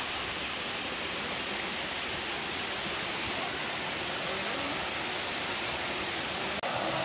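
Steady rushing of flowing spring water, with a brief dropout near the end.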